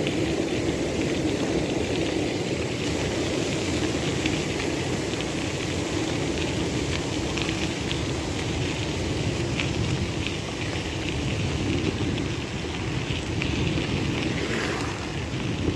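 Mountain bike tyres rolling fast over a gravel trail: a steady crunching and crackling of gravel, with many small ticks over a low rumble.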